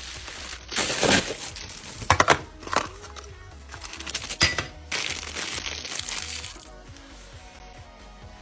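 Plastic mailer bag and a small cardboard box being opened by hand: crinkling and rustling of packaging in several irregular bursts, over background music.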